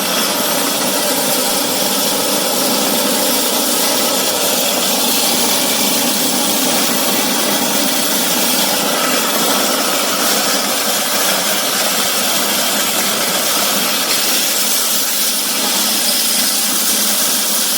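3000 W electric grain mill running steadily while grinding grain. It makes a loud, even, high-pitched rush of motor and grinding noise with no breaks.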